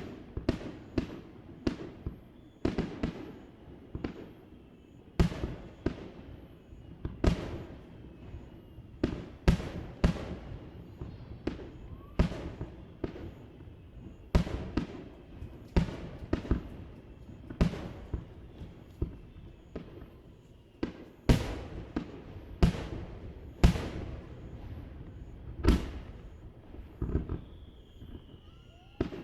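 Aerial fireworks shells bursting over a harbour, heard from across the water: an irregular, rapid run of sharp bangs, each trailing off in an echo, with a faint falling whistle near the end.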